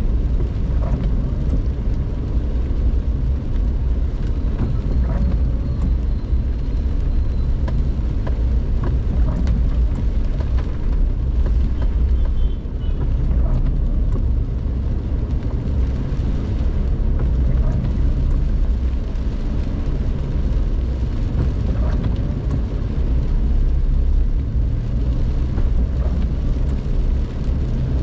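Car driving: a steady low rumble of engine and road noise, heard from inside the cabin, with a few faint ticks.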